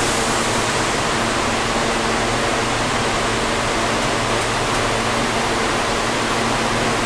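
Steady, even hiss with a faint low hum inside a New York City subway car standing at a station platform with its doors open.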